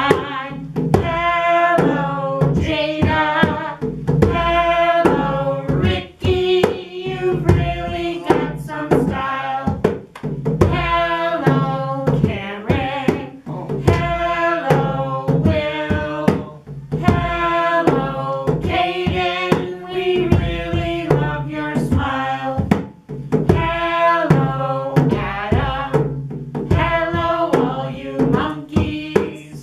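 A woman singing a children's hello song, greeting each child by name, to a steady hand-played beat on a djembe drum.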